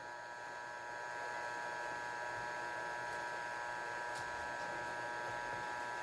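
Hot-air rework station's blower running steadily, a hiss with a steady hum, getting a little louder about a second in as the blower power is turned up to reflow the solder under a CPU chip.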